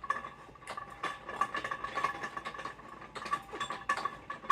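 Metal clicking and scraping from the threaded adjuster of a home dance pole being turned to extend the pole toward the ceiling: a dense, irregular run of small clicks over a faint steady ringing tone.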